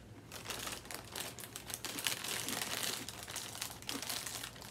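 Clear plastic cereal bag crinkling as it is handled, a dense crackle that starts about a third of a second in.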